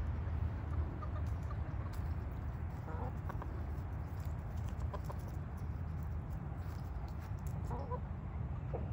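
Hens clucking in short calls a second or two apart, over a steady low rumble.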